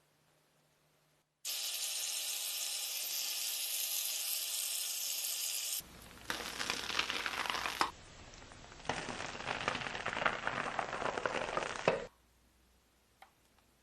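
Slime being squeezed and pressed by hand, giving a dense crackling and popping, in three separate stretches that each start and stop abruptly, with near silence before and after.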